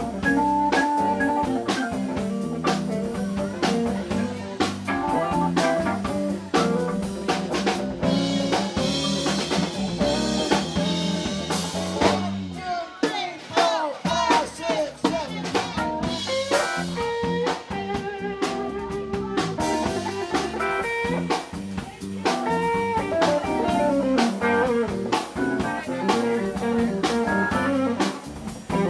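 Live band of Hammond B-3 organ, electric guitar, bass and drums playing an instrumental passage. About twelve seconds in, the bass and drums drop out for a moment after a hit, then the band comes back in.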